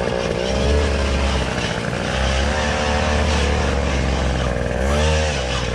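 Small gas engine of a powered wheelbarrow (concrete buggy) running, its pitch rising and falling as the throttle is worked, with a quick rev up and back down near the end.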